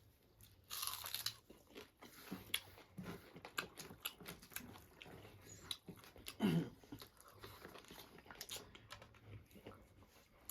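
Close-up eating sounds: chewing and crunching food with many small irregular clicks, and one short voiced sound about six and a half seconds in.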